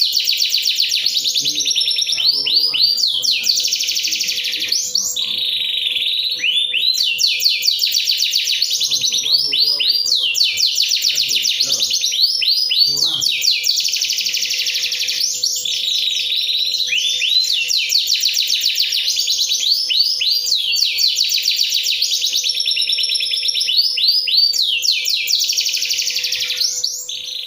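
Domestic canary singing on and on: long runs of fast, high-pitched trills and rolling phrases, broken only by brief pauses. A faint steady hum runs underneath.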